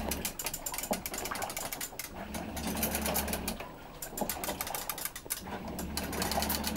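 Homemade float-driven gravity engine running fast: its crankshaft ratchet clicks rapidly and steadily as the shaft turns. Under it, a low hum from the electric trolling motors that drive the pumps comes and goes about every three seconds as they switch on and off in turn.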